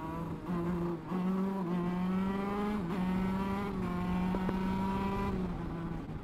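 125 cc two-stroke shifter kart engine heard on board, running high in its rev range with its pitch creeping upward, dipping briefly about a second in and again about three seconds in, then quieter near the end.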